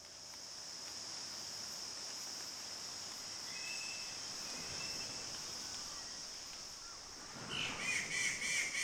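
Dawn nature ambience: a steady high-pitched insect drone, like cicadas, with a couple of short bird chirps about halfway through. Near the end a bird starts calling rapidly, several calls a second.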